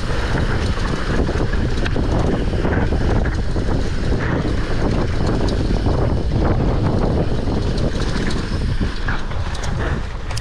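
Heavy wind buffeting the camera microphone of a rider at speed on a race stage, over a continuous rumble from the ride.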